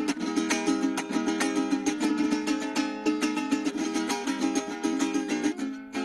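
Venezuelan cuatro, a small four-string nylon-strung guitar, played with a quick, steady stream of plucked notes and strummed chords.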